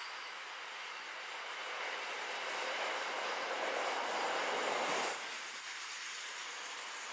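Double-stacked container wagons of an SCT freight train rolling past on the rails: a steady rushing of wheels and wagons that grows louder to about five seconds in, then drops off suddenly.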